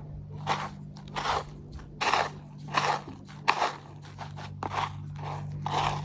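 A run of about eight short crunches, roughly one every 0.7 s, over a steady low hum.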